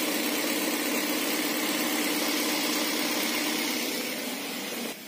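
A Toyota Avanza Veloz's four-cylinder petrol engine idling steadily, heard close up. It grows fainter near the end.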